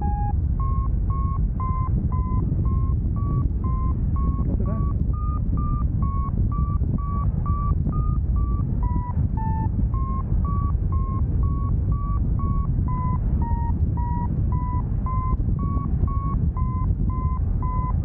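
Paragliding variometer giving its climb tone: short beeps about two a second, their pitch drifting up and down a little with the climb rate, the sign that the glider is climbing in a thermal. Wind rushes over the microphone throughout.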